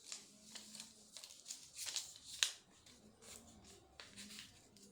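Sheet of paper being handled and folded into a paper airplane's wing, faint rustling and crackling as it is creased, with a sharper crackle about two and a half seconds in.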